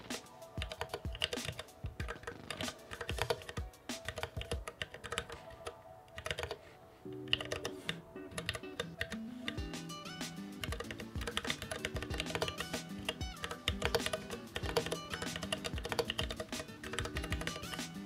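Rapid, irregular typing on a Planck mechanical keyboard with Cherry MX Brown switches: a dense run of key clicks and keycap clatter. Background music plays under it and grows fuller about seven seconds in.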